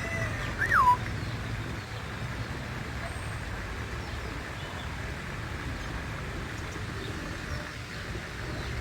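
Birds calling: one loud whistled call that falls sharply in pitch about a second in, then only faint background calls over a low steady rumble.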